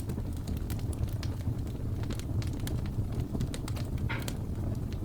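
Fire burning in a homemade steel fireplace: frequent sharp crackles over a steady low rumble.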